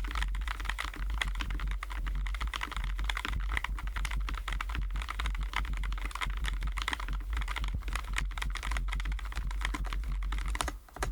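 Continuous fast typing on a Keychron J9 low-profile mechanical keyboard with Keychron Milk POM linear switches: a dense run of keystroke clicks with no pauses.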